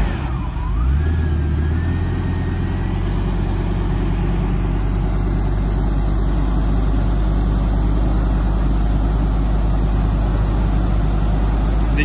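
A Ford V-10 engine on an Orchard Rite frost-protection wind machine running steadily with a low drone, just after being started by the remote auto start. A thin whine dips, then rises in pitch over the first few seconds as the engine settles into its warm-up.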